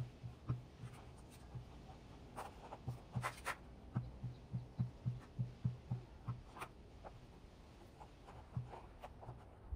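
Paintbrush spreading contact cement over a sheet of EVA foam: rhythmic brush strokes about three a second, in runs with pauses, plus a few sharper taps.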